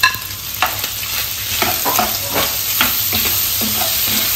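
Chicken pieces sizzling in coconut oil in a non-stick wok, with a spatula scraping and stirring them in repeated strokes. Right at the start there is one sharp, ringing tap of the spatula on a ceramic plate as crushed ginger, garlic and green chilli are knocked into the pan.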